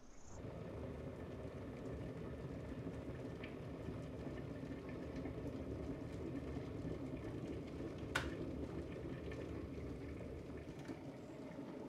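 Electric kettle coming to the boil: a steady low rumble of bubbling water. A single sharp click about eight seconds in is the kettle switching itself off, and the rumble eases slightly near the end.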